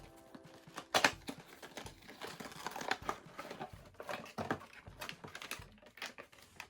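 Toy packaging being handled and opened: irregular rustling and crinkling with light clicks and knocks, the loudest knock about a second in.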